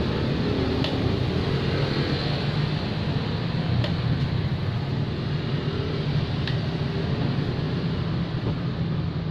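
A steady rumbling hum with a hiss over it, and a few faint light clicks.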